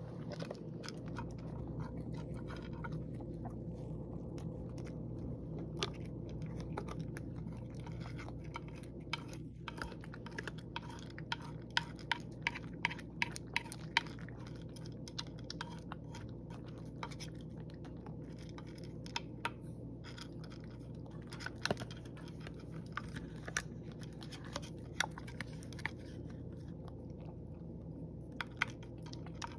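Domestic cat chewing and crunching dry kibble from a dish, in many quick irregular crisp clicks, with a spoon now and then scraping in the dish. A steady low hum lies underneath.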